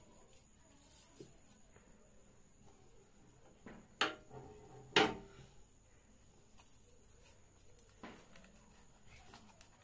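Hands pressing paper strips into the gaps around a stopped flour mill's grinding chamber: faint handling noise, with two sharp knocks about a second apart near the middle.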